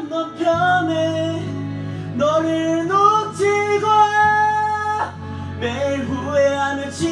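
A man singing a Korean song into a karaoke microphone over the backing track, holding one long note about halfway through.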